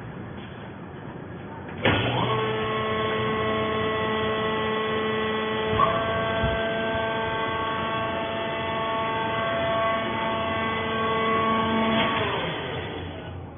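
Animal fiber baler running: a steady electric hum-whine with several held tones, likely its hydraulic pump motor driving a pressing stroke. It starts abruptly about two seconds in, gives a short click near the middle, and cuts off shortly before the end.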